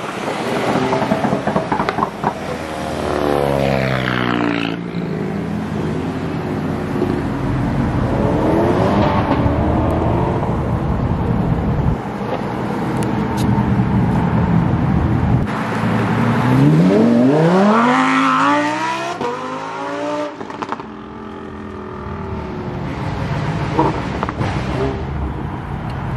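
Performance cars accelerating hard away one after another, each engine revving up steeply in pitch as it pulls off. The loudest and longest rise comes about two-thirds of the way through.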